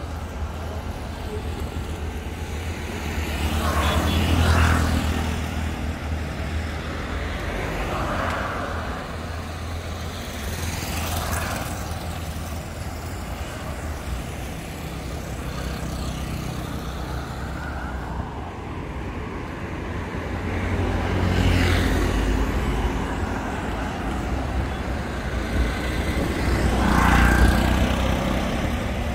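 Street traffic: a steady engine rumble, with about five vehicles passing close by, each swelling and fading over a second or two; the loudest pass about four seconds in and near the end.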